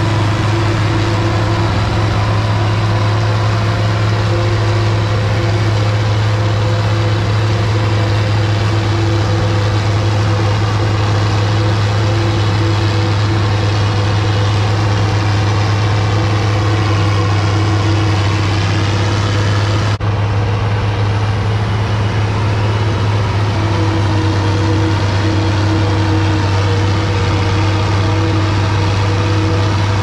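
International 1256 tractor's turbocharged six-cylinder diesel running steadily under load, together with the New Holland 790 forage harvester chopping standing corn and blowing it into the wagon.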